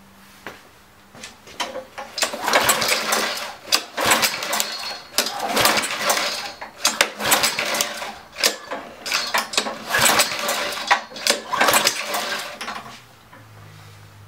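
Honda GCV160 mower engine being pull-started over and over: six or seven recoil-starter pulls about a second apart, each a rattling crank that never catches. The engine won't fire, which the owner puts down to a carburetor gummed up from sitting.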